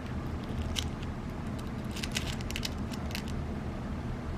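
H&N Baracuda Hunter .22 lead pellets clicking against one another in their tin and against the steel pan of a digital pocket scale as they are picked up and handled. The clicks are light and scattered, one, then a quick cluster, over a steady low hum.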